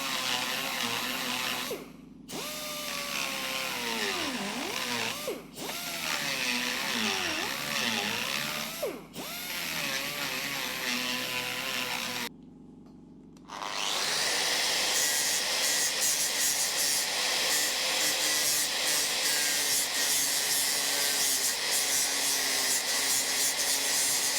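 A handheld power tool smoothing down a surface. Its motor whine dips and recovers again and again as it is pressed on, easing off three times. After a pause of about a second and a half, about two thirds of the way through, a steadier, hissier grinding or sanding starts.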